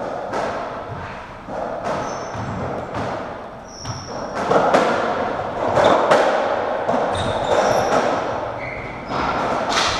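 Racketball rally on a squash court: repeated sharp knocks of the ball off rackets and walls, echoing in the court, with short high squeaks of trainers on the wooden floor.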